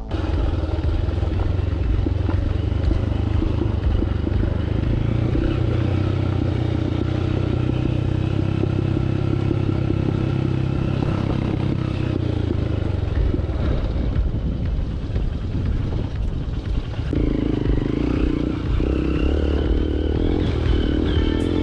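Hero Impulse's single-cylinder four-stroke motorcycle engine running under way on a dirt trail, with some rattling. The engine note shifts about two-thirds of the way through and rises near the end as the rider revs up.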